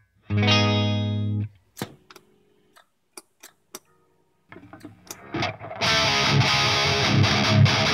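Electric guitar through a Revv Generator 100 tube amp head and a 4x12 cabinet with Celestion Vintage 30 speakers. A clean chord rings for about a second, then a near-quiet pause broken by a few short notes. From about six seconds in, high-gain distorted riffing with rhythmic low chugs comes in on the amp's distortion channel.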